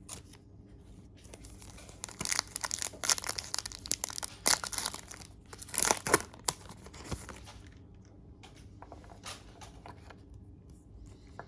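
Foil trading-card pack wrapper being torn open and crinkled, a run of crackling rips about two seconds in, loudest around six seconds, then lighter crinkles as the wrapper is pulled away from the cards.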